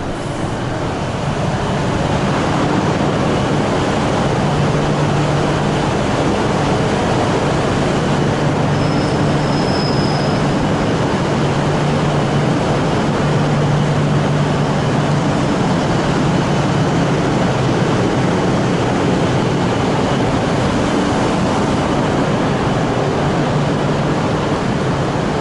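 Tohoku Shinkansen train running: a steady, even rush of noise with a low hum under it, swelling slightly over the first two seconds.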